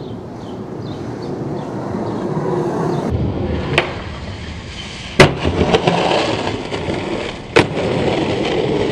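Skateboard wheels rolling on pavement, broken by three sharp clacks of the board hitting the ground, the loudest about five seconds in.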